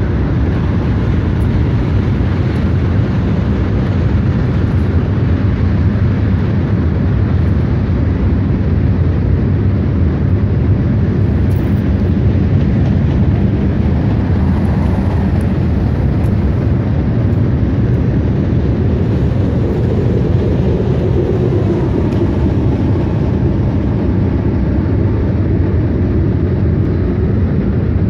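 Freight train cars rolling past at close range: a steady, unbroken rumble of steel wheels on the rails.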